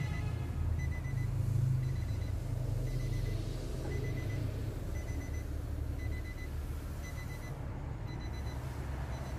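A vehicle's electronic warning chime beeping steadily about once a second, typical of a door-open reminder, over a steady low rumble.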